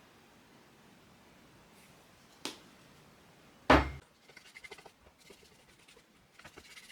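Quiet room tone broken by a light click and, about a second later, a sharp knock on the work table. Then come faint, irregular scratchy strokes of a paintbrush working paint onto thin plywood.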